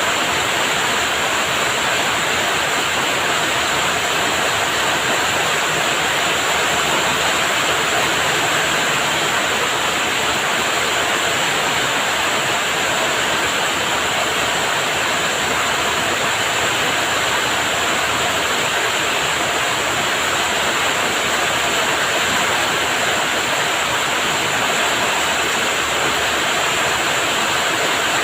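Heavy rain falling steadily: a dense, even hiss that holds without a break.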